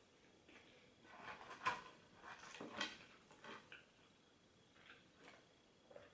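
Close-up eating sounds from a fast-food meal: a couple of seconds of crackly clicks and rustles, then a few scattered soft clicks.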